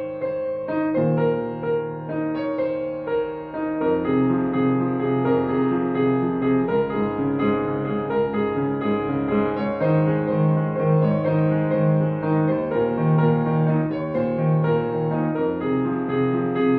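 Grand piano played solo: a flowing piece of held chords and repeated notes at an even loudness.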